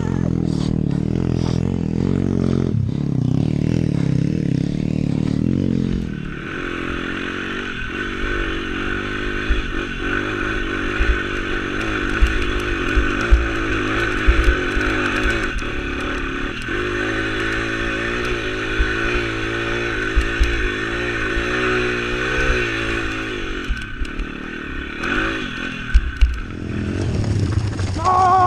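Pit bike with a 140 cc YX single-cylinder four-stroke engine, running and revving up and down while riding over rough, rocky ground, with many short knocks and clatter from the bike and stones. A steady high whine joins in about six seconds in.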